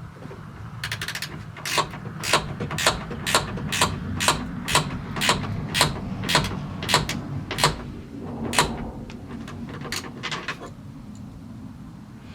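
Hand ratchet clicking as nuts are run down onto a car door's window motor, in regular strokes about two a second, with a quicker run of clicks about a second in.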